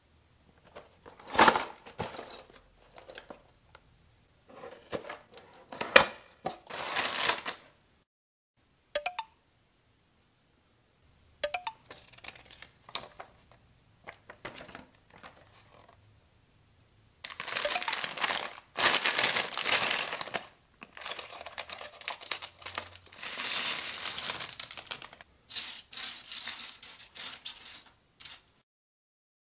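Cardboard box and paper instruction sheet handled, with rustling and sharp clicks. Then, from a little past the middle, many small plastic building bricks clatter onto a tabletop and are spread about by hand in dense runs of clicking.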